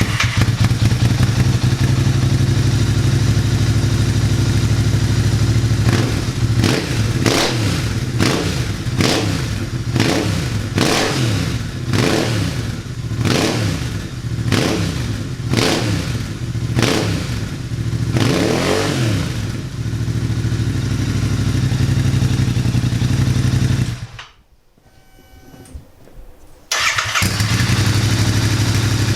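Royal Enfield 650 parallel-twin engine running through a TEC Stinger 2-1 exhaust with one of its baffle options fitted. It idles, then is blipped about a dozen times in quick rev bursts before settling back to idle. Near the end the sound drops away for a couple of seconds, then the idle returns.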